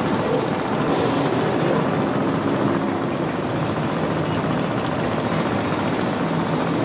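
A vessel's engine running in a steady drone, with a faint held hum under an even wash of noise.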